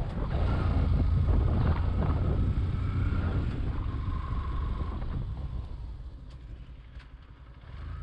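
Yamaha 150 cc single-cylinder motorcycle engine running as the bike rides along a paved road. Its low steady drone grows quieter through the second half, with a small swell near the end.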